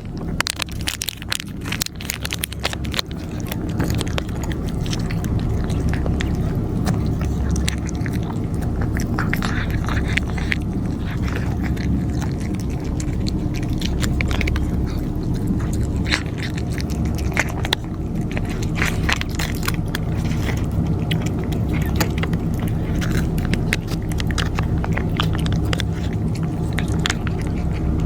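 Cats crunching dry cat food, many quick irregular crunches, over a steady low hum.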